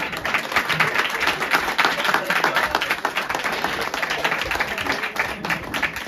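A small seated audience applauding: many hands clapping at once, dense and steady.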